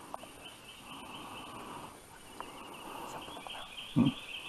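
A steady, high-pitched insect chorus buzzes over soft rustling of brush. About four seconds in there is a single sharp, low thump, the loudest sound.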